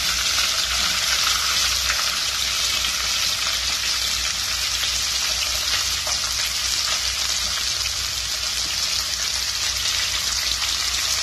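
Sliced onions sizzling in hot oil with fried whole spices in a pot: a steady frying hiss as handfuls of onion are added.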